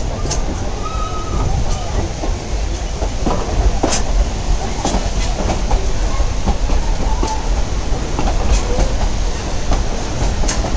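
Durango and Silverton narrow-gauge train cars rolling along the track: a steady low rumble with irregular clicks and clacks of the wheels on the rails.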